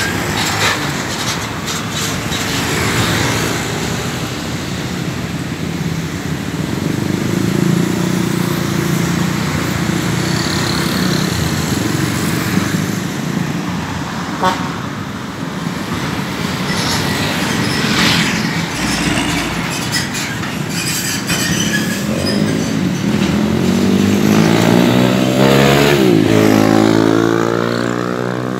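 Heavy road traffic: container trucks, cars and motorcycles running and passing close by. In the last few seconds several passing engines rise and fall in pitch.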